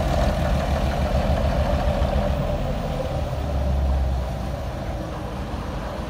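A heavy vehicle's engine running steadily with a deep rumble, which swells about three to four seconds in and then eases off slightly.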